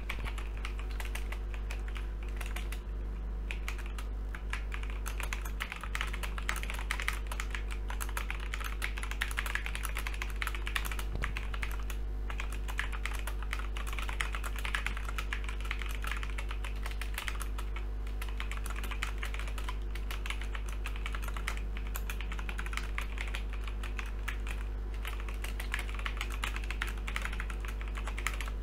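Continuous typing on a Logitech G512 mechanical keyboard with GX Brown tactile switches fitted with Razer PBT keycaps: a dense, irregular stream of key clacks.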